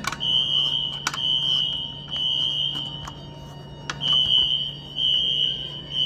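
Siemens ZH-MC-R fire alarm horns sounding a high-pitched temporal-three pattern: three short beeps, a pause of about a second, then three more. The building's fire alarm system is in alarm after a manual pull station was pulled.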